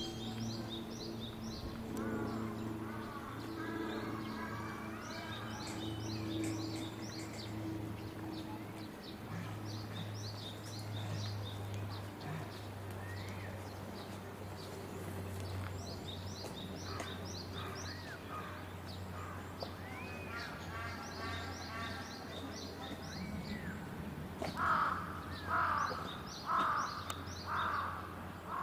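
Outdoor bird sounds: small birds chirping high and quick throughout, then a bird giving about five loud, harsh calls in a row, roughly a second apart, near the end. A steady low hum runs underneath.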